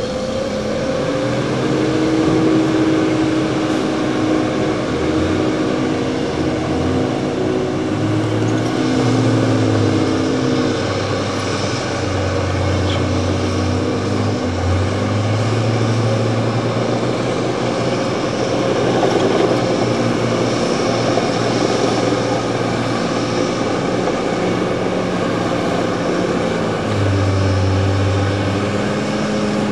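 Diesel engines of an articulated dump truck and a crawler bulldozer running under load as they shift spoil, the engine note rising and falling several times as the machines work.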